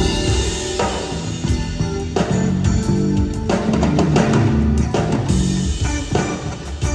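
Live band playing at a sound check: a drum kit with bass drum and snare hits keeps time under held notes from the pitched instruments.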